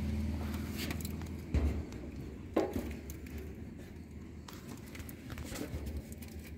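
A low steady hum that slowly fades, broken by two dull knocks about a second and a half and two and a half seconds in, with a few faint clicks.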